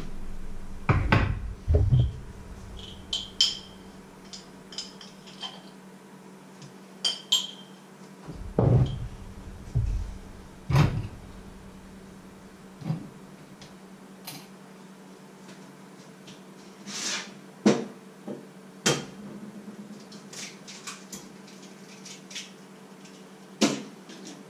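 Kitchen handling sounds: scattered knocks, taps and clinks of utensils and containers being set down and handled on a wooden worktop, a few with a dull thud, over a faint steady low hum.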